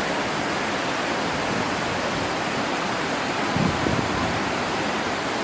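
Steady rush of water from the Chegem waterfalls and the fast mountain river below them, an even unbroken roar. A brief low thump about two-thirds of the way in.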